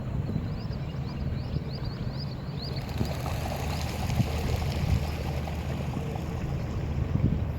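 Water rushing and gurgling along the hull of an inflatable boat under way, over the steady low hum of a Minn Kota Endura 30 lb thrust electric trolling motor, with some wind on the microphone.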